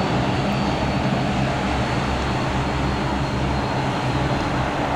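Bombardier DHC-8 Q400's Pratt & Whitney PW150A turboprop engines and propellers running, a steady low hum under an even rush of noise.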